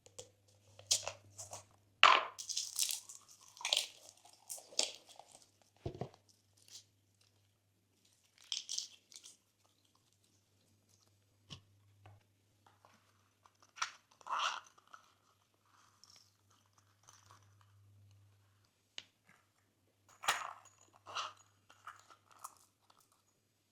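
Slime being pressed and mixed by hand, giving irregular bursts of crunchy crackles and small clicky pops with short quiet gaps between them.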